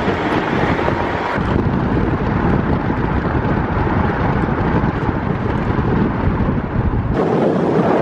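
A car on the move: steady road and wind noise, which changes abruptly about a second and a half in and again near the end.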